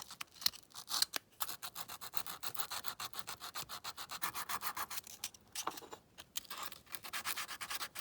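240-grit abrasive being rubbed back and forth by hand over a small die-cast metal car body, in quick short strokes several a second, with a couple of brief pauses. It is sanding away a casting line across the bonnet.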